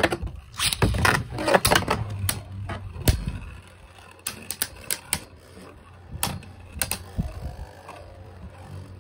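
Two Beyblade spinning tops battling in a plastic Beyblade Burst QuadStrike stadium: rapid sharp clacks as they strike each other and the stadium, dense for the first three seconds with one heavy knock, then sparser, lighter clicks as they circle.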